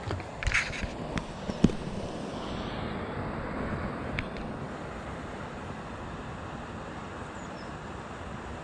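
Steady wind noise on the microphone, with a few sharp clicks and knocks of handling in the first two seconds, the loudest about a second and a half in, and light water splashing as a small pike is held in the water by hand.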